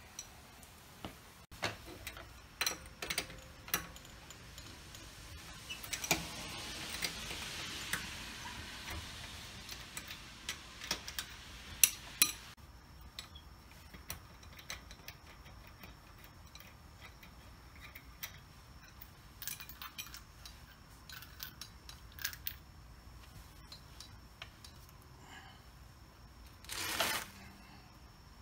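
Lug wrench and loosened lug nuts clicking and clinking as a rear wheel's lug nuts are spun off. Near the end comes a short louder scrape as the wheel is pulled off the hub.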